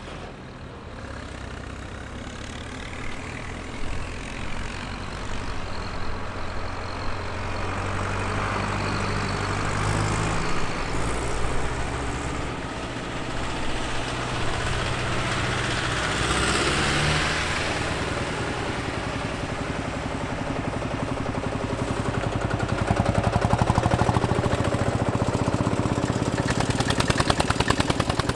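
Old tractors' engines running at low speed as the tractors drive past one after another, growing louder as each one nears. Near the end a rapid, even exhaust beat stands out.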